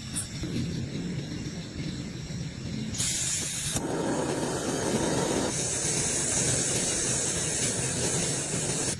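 Rain falling steadily, a hissing wash of noise that changes abruptly in character about three, four and five and a half seconds in.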